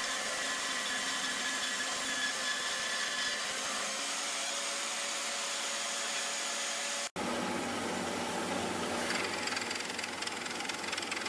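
WEN benchtop band saw running and cutting through a bar of iron stock, a steady whir with the blade hissing in the metal. About seven seconds in it breaks off abruptly and a second band saw is heard running steadily.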